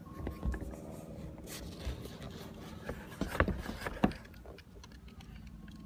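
A few scrapes and light knocks on the plastic dust cup of a Shark Navigator vacuum cleaner, the loudest cluster about three and a half to four seconds in, over a steady low hum.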